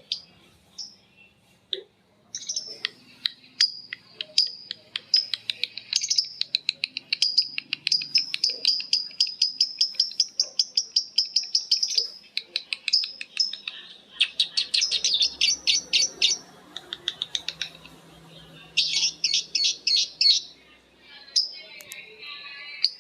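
Lovebirds in long 'ngekek' chattering trills: fast strings of sharp, high notes. One unbroken run lasts about ten seconds, followed by two shorter bursts, with birds calling back and forth.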